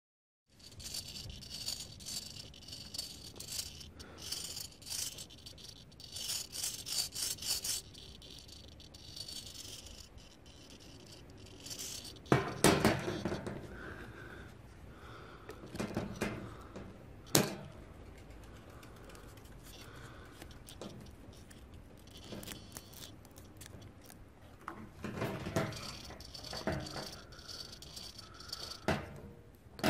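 Small plastic and metal rattles and clicks from a quadcopter frame and its servo gimbal being handled, with two sharp louder knocks in the middle.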